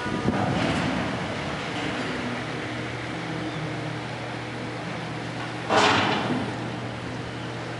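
Drawbridge's bascule span lifting: a steady low hum from the lifting machinery over a rushing background. There is a short, loud burst of noise about six seconds in.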